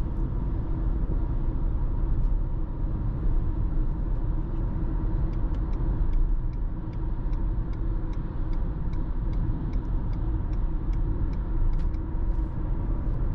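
Steady road and tyre noise with a low rumble inside the cabin of a Dacia Jogger Hybrid 140 driving at speed. A faint, evenly spaced ticking runs for several seconds in the middle.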